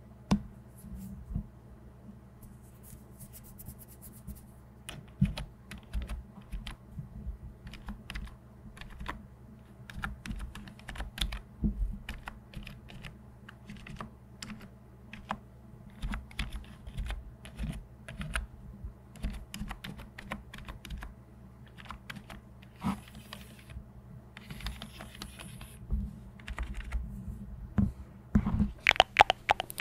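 Keys of a backlit computer keyboard being tapped and typed on in irregular runs of clicks, growing denser and louder near the end, over a faint steady low hum.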